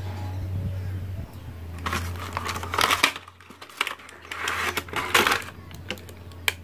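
Hands handling a small cardboard retail box and its plastic inner tray: rustling, scraping and sharp clicks as the box is slid open and the tray pulled out, starting about two seconds in, over a steady low hum.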